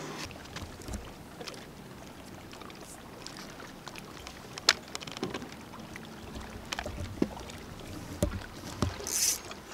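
Water lapping against a boat's hull, with scattered light knocks and clicks and a short hiss near the end.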